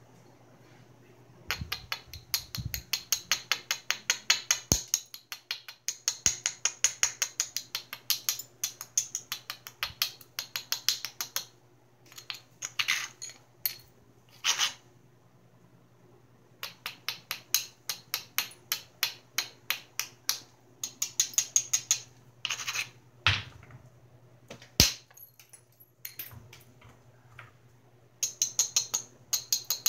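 Edge of a Georgetown flint biface being abraded with a small hand-held tool to prepare the striking platforms: runs of quick scratchy clicks, about eight a second, each run lasting a few seconds with short pauses between. A couple of sharper knocks stand out about two-thirds of the way through.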